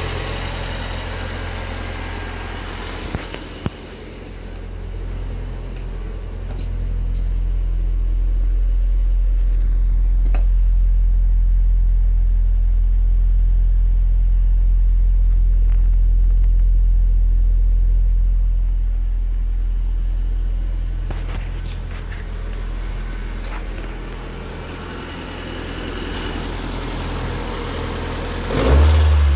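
A 2003 Mazdaspeed Protege's turbocharged 2.0-litre four-cylinder engine idling steadily. It is louder through the middle, at the exhaust tip. There is a short louder burst near the end.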